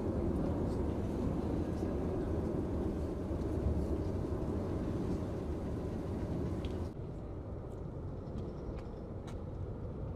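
Continuous low rumbling of an erupting volcano's lava fountain, the Cumbre Vieja on La Palma. The rumble drops a little about seven seconds in, and a few faint sharp cracks come through after that.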